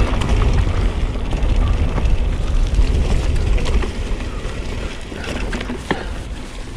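Mountain bike rolling downhill on a dirt trail: tyres rumbling over rough ground, with the bike rattling and clicking over bumps. It gets somewhat quieter about four seconds in.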